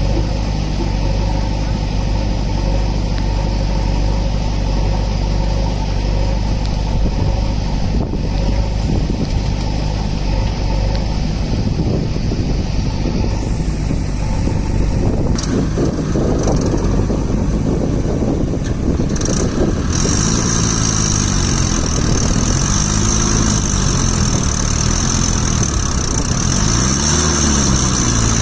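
Mahindra Arjun 555 DI tractor's four-cylinder diesel engine labouring to pull a fully loaded trolley through deep mud, with a backhoe loader's diesel running close by. The engine runs at a steady note at first; in the second half the revs repeatedly rise and fall.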